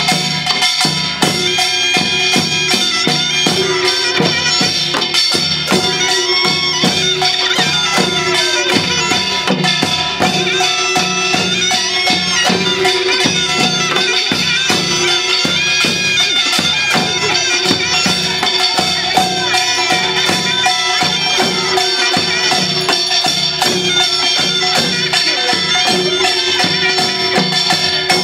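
Korean pungmul folk band playing: a loud, piercing double-reed wind instrument, typical of the taepyeongso shawm, holds a steady melody over continuous drumming and clanging metal percussion.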